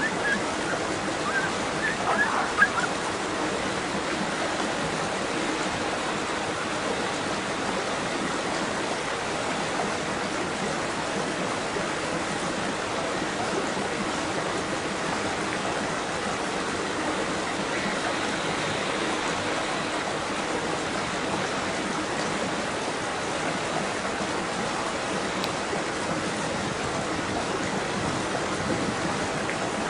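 Steady rush of running water, with a few short bird chirps in the first three seconds.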